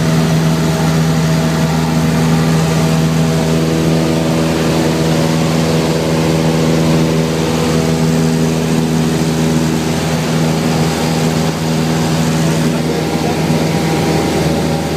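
Cessna 172 Skyhawk's piston engine and propeller droning steadily at a constant pitch, heard from inside the cockpit.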